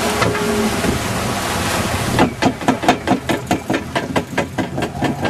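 Mullet boat's engine running on the water, with wind noise on the microphone. About two seconds in, a rapid rhythmic thumping begins, about three to four knocks a second.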